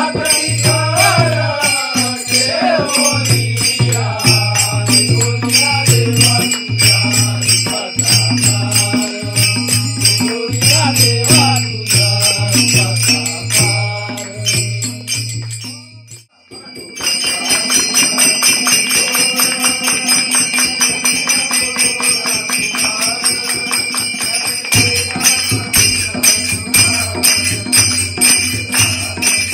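Devotional bhajan music: voices singing over a steady jingle of hand cymbals. About 16 seconds in it cuts out briefly, then comes back mostly as cymbals jingling to the beat, with little singing.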